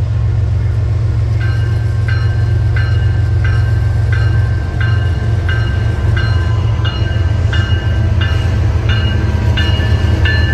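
Diesel locomotives of a Union Pacific freight train rumbling as they approach and draw up close. From about a second in, a bell rings steadily, about three strikes every two seconds.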